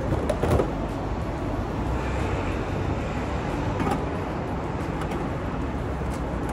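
Steady running and road noise from a Honda Gyro Up three-wheeled moped under way, with a few short knocks near the start.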